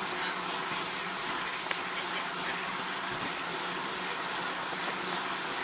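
Steady wind and road noise of a moving vehicle, with a low steady hum under it and a few faint ticks.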